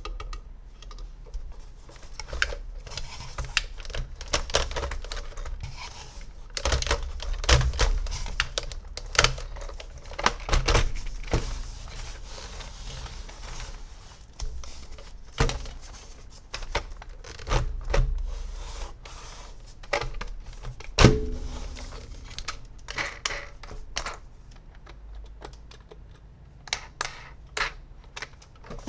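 Plastic toys and their packaging being handled: irregular clicks, taps and crinkles, with a sharper knock about two-thirds of the way through.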